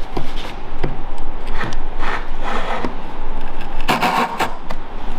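Japanese pull saw cutting across a board in a series of uneven back-and-forth strokes, the teeth biting on the pull stroke; the strongest strokes come about four seconds in.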